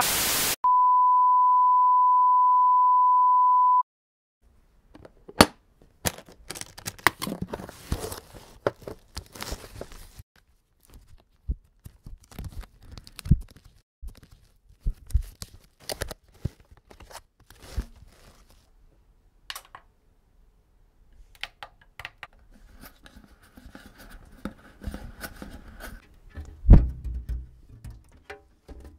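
A brief burst of TV static, then a steady high-pitched test-tone beep for about three seconds that cuts off. After a short gap, scattered clicks, taps and rustles of vinyl record sleeves being flipped through and handled, with one heavier thump near the end.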